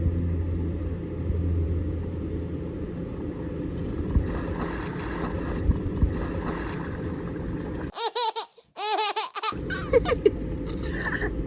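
A steady low rumble, then a young child's high-pitched laughter and squeals about eight seconds in, lasting a second or two.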